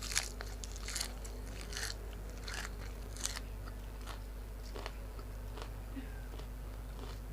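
Close-up mouth sounds of a person chewing and biting grilled pork: irregular wet clicks and crunches, busier in the first few seconds and sparser after.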